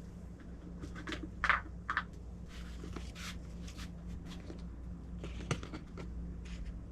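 Faint, scattered clicks and brief rustles of hands working on engine parts while oiling them, over a steady low hum.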